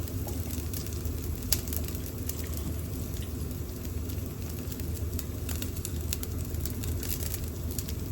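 Pork skewers sizzling and crackling on an electric shichirin grill, with scattered pops of spitting fat and one sharper pop about a second and a half in. A range-hood fan hums steadily underneath.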